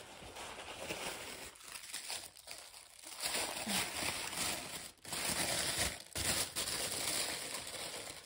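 Product packaging being handled and unwrapped, crinkling and rustling almost continuously with a few brief pauses.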